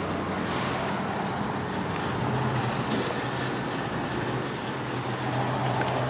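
A 2015 Hyundai Sonata's 2.4-litre four-cylinder engine idling: a steady low hum that comes in about two seconds in and grows stronger near the end, over a steady background hiss.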